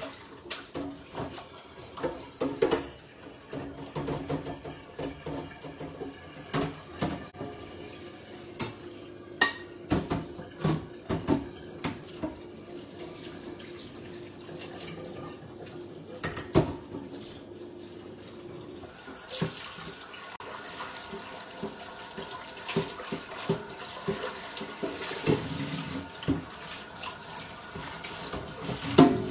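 Washing up at a kitchen sink: dishes and pans clattering and knocking under a running tap. The water runs steadier and louder from about two-thirds of the way through.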